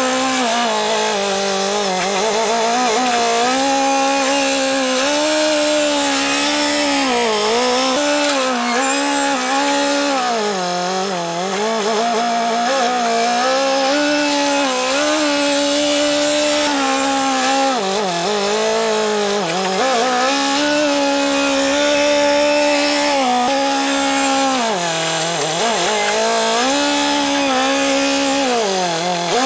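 Telehandler engine running hard close by, its pitch rising and falling over and over as the operator works the boom and hay grapple, with several deeper dips in speed.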